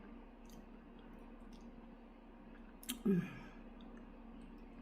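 Mouth clicks and smacks of someone eating chicken feet, with a sharper smack and a brief falling vocal sound about three seconds in.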